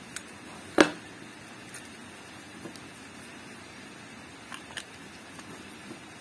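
Workbench handling sounds as a new radiator cap is fitted to a cooling-system cap pressure tester: one sharp knock about a second in, then a few light clicks.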